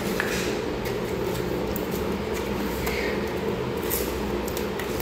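Metal putty knives scraping and squelching through a stiff mound of epoxy grout on a tile floor as it is mixed, with a few faint scrapes and taps, over a steady low hum.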